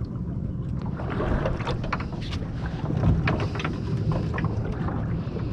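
Wind buffeting the microphone, a steady low rumble, aboard a small aluminium boat at sea, with scattered sharp clicks and knocks from water and gear against the hull.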